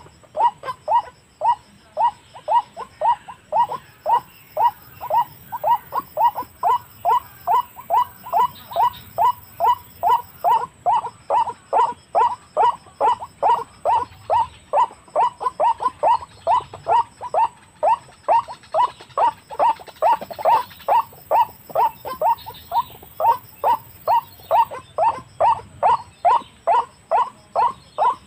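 White-breasted waterhen (ruak-ruak) call: a short note falling in pitch, repeated steadily about three times a second without pause.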